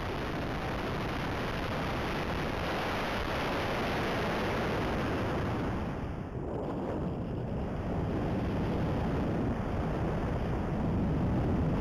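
Airflow rushing over a radio-control model glider in flight, picked up by its onboard camera's microphone as steady wind noise with no motor heard. It eases briefly about halfway through and then builds to its loudest near the end.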